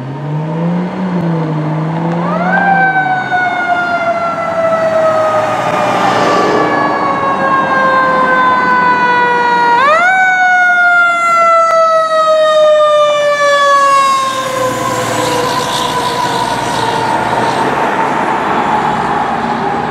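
Fire truck siren wailing: it climbs quickly to a high pitch, then slides slowly down over several seconds, and does this twice.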